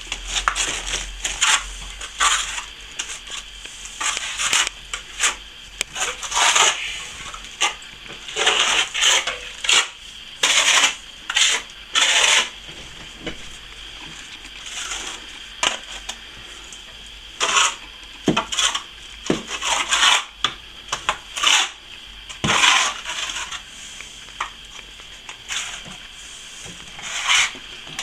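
Steel plastering trowel scraping and clinking irregularly, metal against the hawk and wet plaster on the wall, in short strokes of under a second each.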